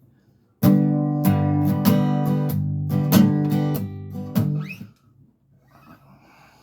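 Acoustic guitar strummed, about a dozen strokes over a ringing chord, for about four seconds; it stops just before the end.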